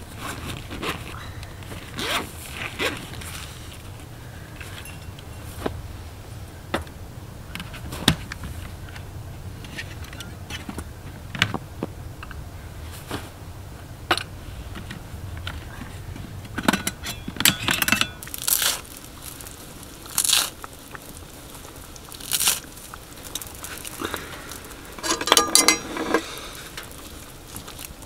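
Camping gear being handled on a snowy floor: rustling and crunching of bags, fabric and packed snow, with scattered clicks and knocks as items are picked up and set down, and a brief clatter near the end.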